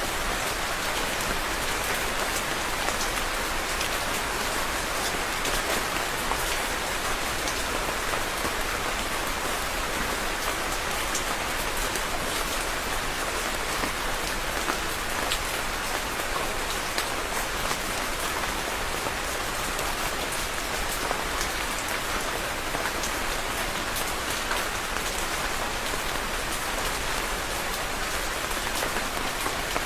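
Steady rain falling and pattering on a surface, with many small individual drop ticks over a continuous hiss.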